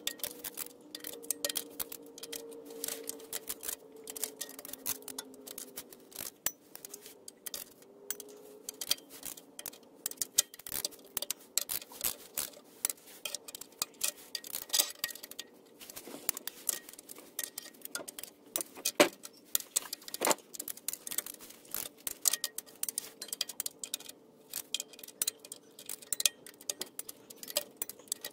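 Socket ratchet clicking in quick runs while the transmission pan bolts are tightened, with two louder sharp clicks about two-thirds of the way through.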